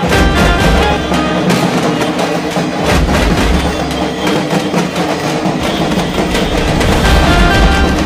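Loud procession band music with drums and a steady beat, played by a marching band in a Hindu immersion procession.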